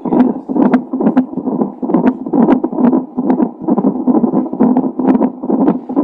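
Unborn baby's heartbeat picked up by a Doppler ultrasound fetal monitor: fast, rhythmic whooshing pulses, a little over two beats a second.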